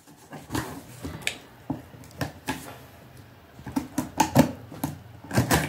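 Scissors and hands working at a cardboard shipping box to cut it open: irregular clicks, taps and scrapes, with a cluster of sharper clicks about four seconds in.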